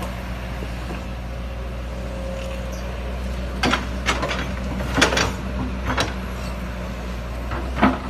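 Kobelco SK210 excavator's diesel engine running steadily at idle, with several sharp metallic knocks or clanks in the second half.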